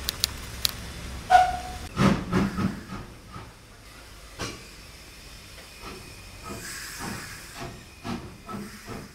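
Steam locomotive standing in steam: a steady hiss of steam with sharp clicks and clanking knocks, and a short pitched tone about a second and a half in.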